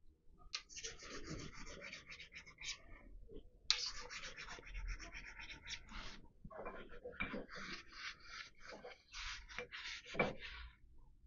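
A cloth rag rubbing and wiping the steel surfaces of a lathe collet chuck, in three spells of scratchy rubbing, with a couple of light knocks of metal parts.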